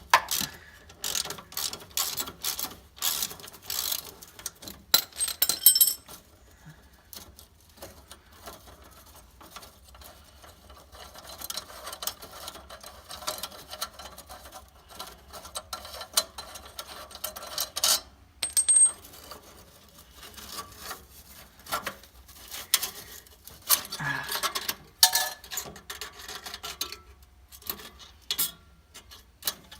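Hand tools and metal exhaust parts clicking and clinking, with rubbing and scraping, in bunches of quick knocks with quieter spells between.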